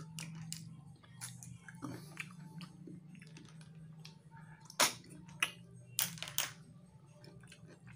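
Mouth noises of eating spicy freshwater snails (tutut), sucking the meat from the shells and chewing, with about four sharp, loud slurps in the second half. A steady low hum runs underneath.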